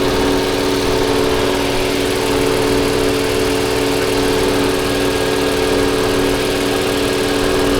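Toyota Avalon V6 engine idling steadily with an uneven low throb, misfiring on cylinder 6 because of a clogged fuel injector.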